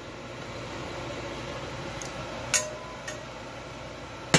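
A few sharp clinks and taps of a pan and chopsticks against a ceramic plate and the stovetop as food is plated, the loudest about halfway through, with a brief ring, and another right at the end, over a steady background hum.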